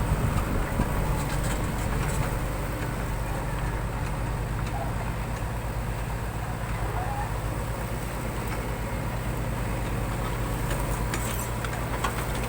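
Diesel engine of a JCB 3DX backhoe loader running steadily, a low, even drone.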